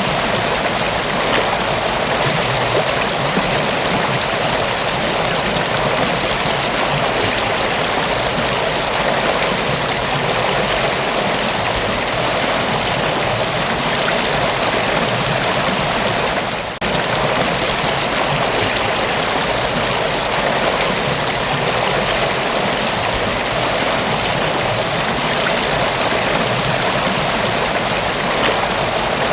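Mountain waterfall rushing steadily, a dense even hiss of falling water, with one brief dip in level just past halfway.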